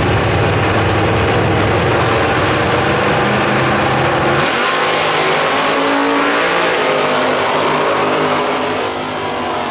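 Two drag-racing cars' engines revving hard while staged at the starting line, then launching about four and a half seconds in and running on at full throttle as they accelerate away down the strip; the sound eases off slightly near the end.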